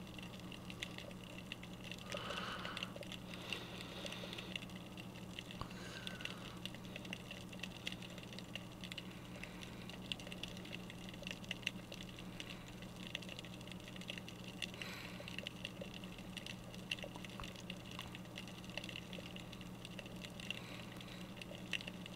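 Underwater ambience picked up by a submerged GoPro: a faint, dense crackle of small clicks over a low, steady hum.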